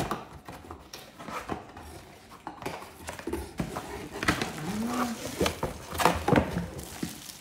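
Scattered clicks, knocks and light clatter of a vacuum coffee canister being handled and unpacked, its lid and body knocking together.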